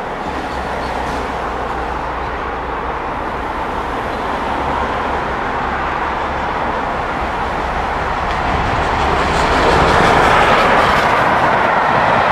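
Steam locomotive 60163 Tornado, a three-cylinder Peppercorn A1 Pacific, approaching and passing with its train of coaches. The sound grows steadily louder and is loudest about ten seconds in, as the engine and coaches go by.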